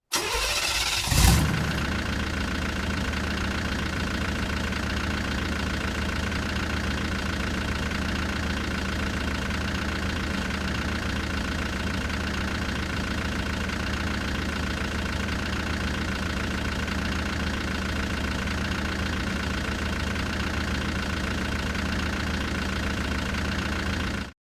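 Car engine starting: it catches with a brief rev about a second in, then idles steadily and shuts off suddenly just before the end.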